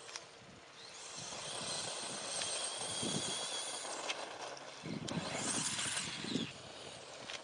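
Brushless electric RC truck (Traxxas E-Revo VXL) running at speed, its motor giving a steady high whine over tyre noise on dirt and gravel. About five seconds in it crashes and tumbles, with scraping, crunching and a sharp knock.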